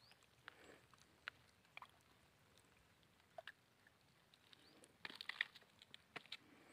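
Near silence: faint outdoor quiet with scattered soft clicks, and a short cluster of sharper clicks about five seconds in.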